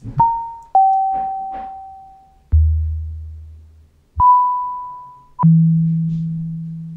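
Bitwig Studio Poly Grid synth patch generating notes by itself: a looping envelope retriggers a nearly pure tone at a new random pitch each cycle. Five notes start in turn at uneven spacing, each with a sharp attack and a fade-out. The pitches leap between low bass notes and high ones around 1 kHz.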